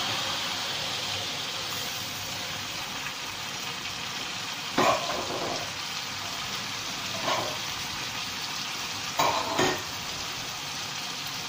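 Blended chilli paste frying in hot oil in an aluminium wok: a steady sizzle, with a few short, louder bursts, one about five seconds in and a couple close together near the end. The paste is being fried down as the base of a sweet-sour sauce.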